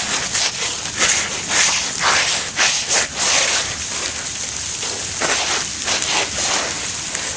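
Hail falling and striking icy ground and surfaces: a dense, irregular crackling patter. Louder scrapes come every second or so from feet sliding on the ice.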